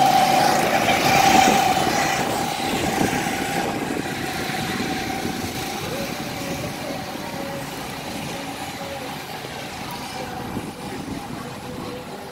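Go-kart engines running as karts race round the track, loudest in the first two seconds and then slowly fading as they pull away.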